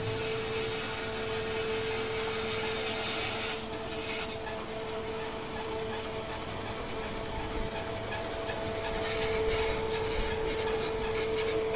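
Macaroni production line running: a single-screw pasta extruder and its motors give a steady mechanical hum with a constant whine. A run of rapid ticks joins in during the last few seconds.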